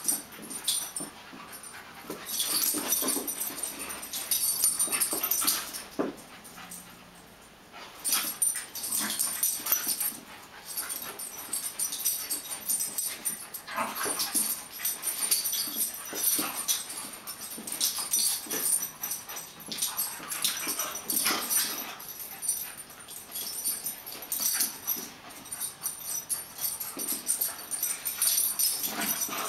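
Two dogs, a beagle and a wiry-coated terrier, play-fighting: short, irregular dog vocal outbursts through the whole stretch, with a quieter lull about six seconds in.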